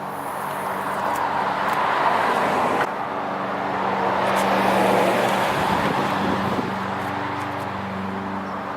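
Road traffic: passing vehicles that swell and fade, loudest about two seconds in and again around five seconds in, over a steady low hum.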